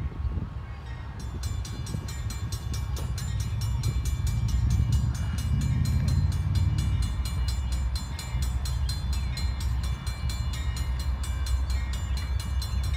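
Railroad grade-crossing bells start ringing about a second in, a fast, even clanging of several strikes a second that keeps on: the crossing warning activated for an approaching train. A low rumble runs underneath.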